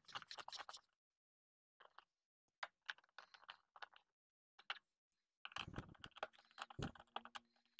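Faint, scattered clicks and rattles of hands handling the wiring and plastic connectors in an ATV's engine bay, coming in short clusters with pauses between, with a couple of dull knocks about six to seven seconds in.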